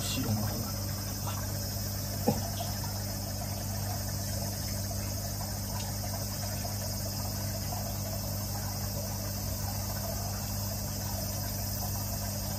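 Aquarium equipment running: a steady low electrical hum under a high hiss, with one sharp click about two seconds in.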